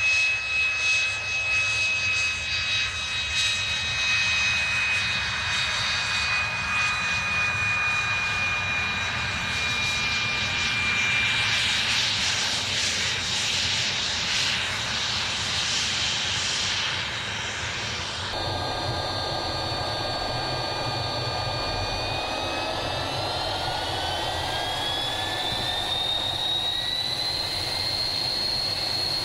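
Aero L-39 Albatros jet trainer's Ivchenko AI-25TL turbofan running with a high turbine whine and jet rush as the aircraft rolls along the runway. After an abrupt cut, heard from inside the cockpit, the whine rises steadily in pitch as the engine is throttled up, then holds high.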